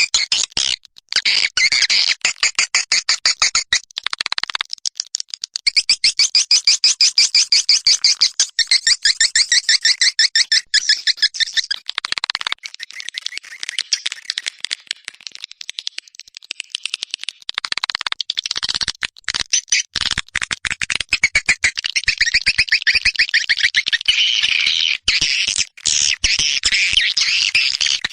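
Swiftlet call recording of edible-nest swiftlets: fast, dense trains of high, twittering chirps that repeat in runs with a few brief pauses. This is a lure call played to draw swiftlets into a swiftlet house to roost and nest.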